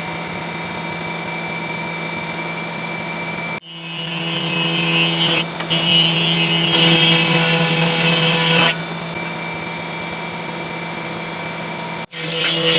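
A woodworking power tool running steadily with a constant hum. From about 4 to 9 seconds in, the sound gets louder and hissier, as the tool cuts wood. It breaks off abruptly twice, about 3.5 and 12 seconds in.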